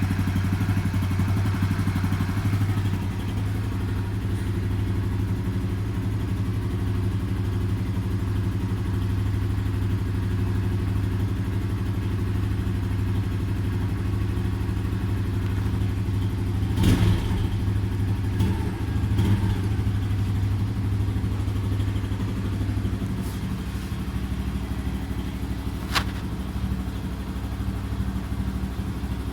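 Small Chinese 50cc C50-type motorcycle engine, a single-cylinder four-stroke, running steadily at idle with a few sharp knocks, one about halfway through and one near the end. The valves are badly adjusted after a faulty service.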